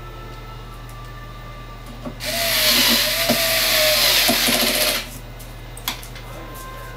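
Cordless drill/driver turning a screw in a 1/4-inch aluminium router insert plate, its motor running with a steady whine for about three seconds, followed by a single click near the end.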